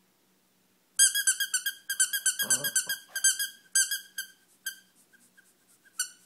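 A plush squeaky toy being squeezed: a rapid string of high squeaks, about five a second, starting about a second in, then slowing and fading to occasional squeaks. A short low vocal sound comes about two and a half seconds in.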